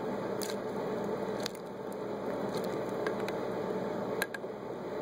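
A handful of light, sharp clicks from the piston rings of a 1987 Mercury 60 hp outboard being pressed in through the cylinder port and springing back, a sign of good ring spring tension. A steady background hum runs underneath.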